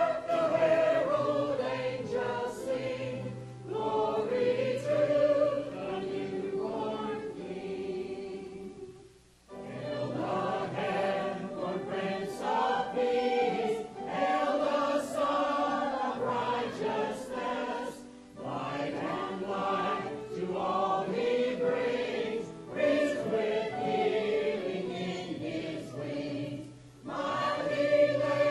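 Mixed church choir of men and women singing, phrase by phrase, with short breaks between phrases, the deepest about nine seconds in.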